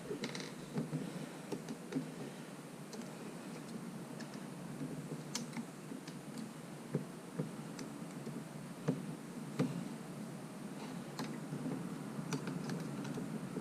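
Irregular small clicks and taps of hand work on an opened touchscreen panel, as the small centering guides that hold the LCD screen are loosened and removed, over a steady low background noise.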